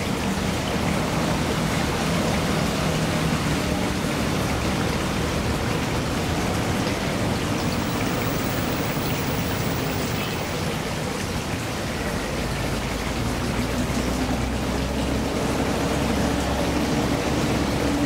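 Water flowing and splashing steadily into a shallow pond, an even hiss of running water. A low steady rumble joins in about two-thirds of the way through.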